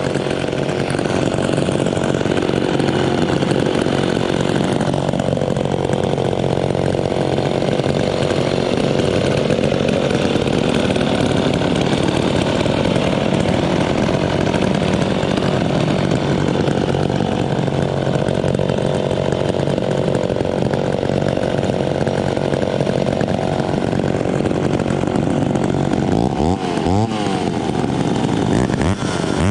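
Three vintage two-stroke chainsaws with custom exhausts, a McCulloch Pro Mac 55, a PM Canadien 340 and a Homelite XL12, running together with their engine notes overlapping. Near the end the engines are revved up and down in quick blips.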